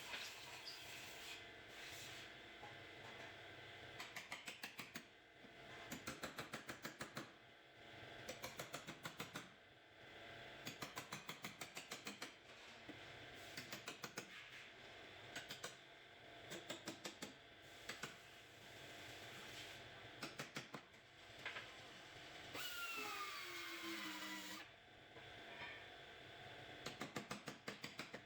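A hand ratchet clicking in repeated short bursts of rapid clicks, each about a second long, as a fastener is worked on the car. A brief squeak falls in pitch a little past two-thirds of the way through.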